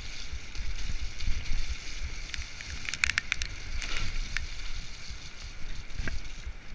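Mountain bike ridden fast down a dirt trail: tyres rolling over dirt and the bike rattling, with wind buffeting the microphone. A quick cluster of sharp clicks and rattles comes about three seconds in, and one more click near the end.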